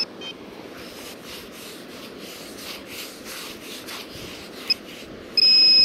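Beach sand being scraped and dug out of a hole, a run of rough scraping strokes. Near the end a short blip comes, then a loud steady electronic beep from the metal detecting gear as it signals a coin target in the hole.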